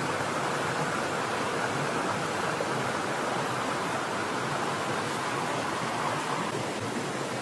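Steady rushing of a flowing river, an even unbroken hiss of water.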